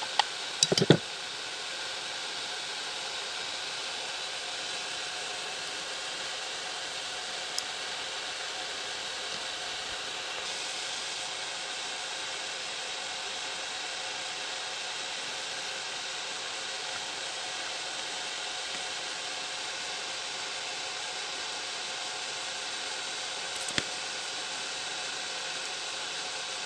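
Steady, even hiss. A few sharp clicks about a second in and one near the end come from pliers handling wire.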